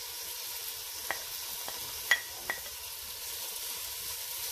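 Chopped onion, tomato, chicken and freshly added diced carrot sizzling in oil in a pan, stirred with a wooden spatula. The spatula knocks against the pan three times, the sharpest about two seconds in.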